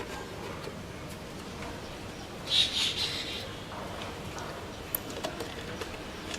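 A bird calling in a short burst of chirps about two and a half seconds in, with a few faint clicks near the end.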